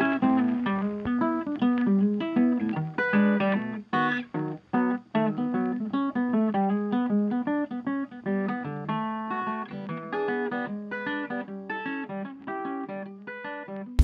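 Background music: a guitar picking a quick run of separate notes.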